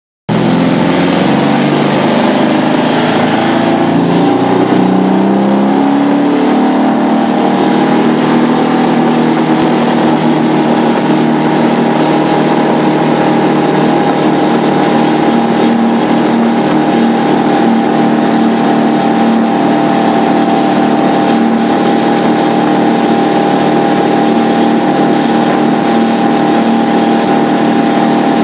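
Tow boat's engine accelerating hard to pull a barefoot water skier up out of the water. It rises in pitch over the first few seconds, then runs steadily at speed over a constant rush of water.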